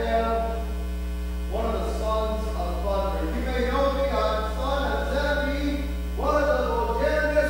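A man's voice chanting in long, slowly bending held notes, two phrases, the second starting near the end, over a steady electrical mains hum.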